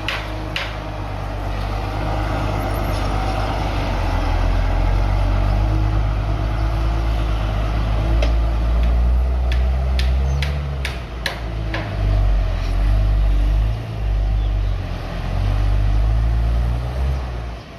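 Bulldozer's diesel engine working, its level swelling and dipping as the load changes, with a few sharp metallic clanks, most of them around the middle.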